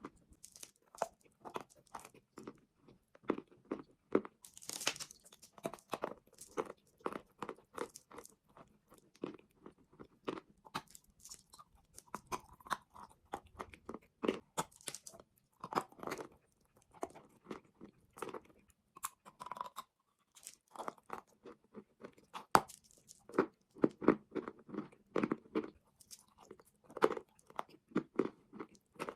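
Close-miked biting and chewing of chalk and clay: a stream of dry, sharp crunches in an irregular rhythm, thinning out now and then between bites.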